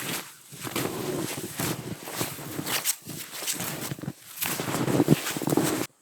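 Snowshoes crunching through deep snow in steady walking steps, cutting off suddenly near the end.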